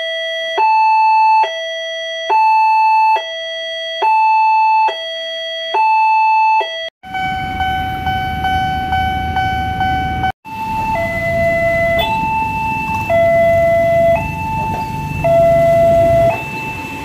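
Railway level-crossing warning alarms. First comes an electronic two-tone alarm, switching between a low and a high tone about once a second. About seven seconds in it changes abruptly to a single steady tone over street traffic, and then to another, slower two-tone alarm with traffic noise behind it.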